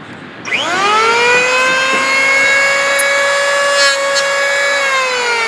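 Porter-Cable 6 amp electric planer's motor spinning up about half a second in and running with a steady high whine during a test pass on scrap wood, then starting to wind down near the end.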